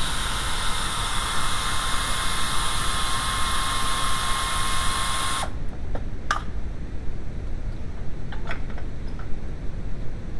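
Small power tool motor running steadily with a high whine for about five seconds, then cutting off, followed by a few light clicks.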